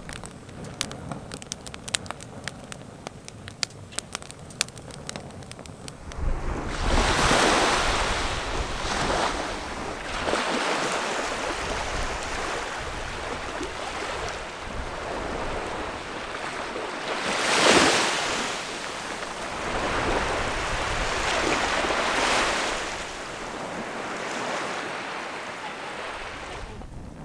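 Wood fire crackling in a fire pit, sharp irregular pops for about six seconds. Then small waves wash up a sandy beach, the rush swelling and fading every few seconds; the loudest comes about 17 seconds in.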